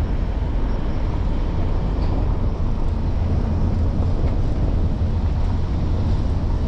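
Steady low rumble of a vehicle moving along a paved road, heard from on board.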